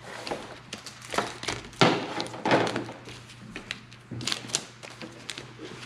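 Pokémon trading cards being handled on a wooden table: a stack of cards gathered up and set down, with scattered taps and clicks and a single thump about two seconds in.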